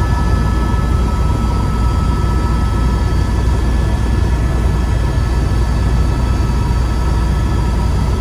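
Helicopter in flight heard from inside the cabin: a loud, steady low rumble with a few thin, steady whining tones above it.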